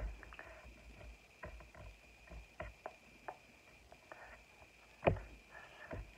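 Scattered soft taps, slaps and brushing sounds of hands meeting each other and clothing while signing, with a louder slap about five seconds in. A faint steady high hum lies underneath.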